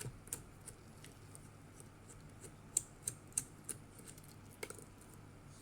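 Light, irregular clicks and taps of small plastic robot parts and fittings being handled during disassembly, the sharpest three close together near the middle.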